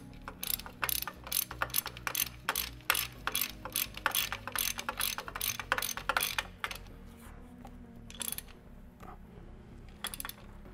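Hand ratchet clicking in quick back-and-forth strokes as a transmission bolt is run down against a nut held by a wrench. The clicking stops about two-thirds of the way through, and a couple of single clicks follow.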